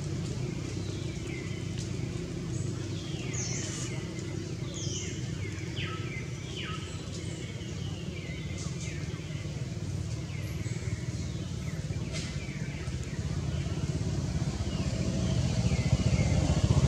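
A motor vehicle engine runs steadily in the background and grows louder near the end, as if approaching. Above it come repeated short, high, falling chirps.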